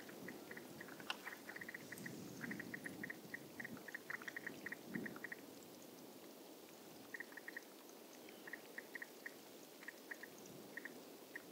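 Seawater slowly draining out of a thick bed of wrack seaweed at ebb tide: a soft gurgling with quick runs of tiny crackling pops, quieter for a while around the middle.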